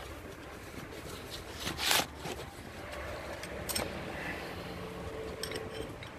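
Hand work on a car's underside: a few clicks and small knocks, the loudest a short scraping burst about two seconds in, over steady wind noise on the microphone.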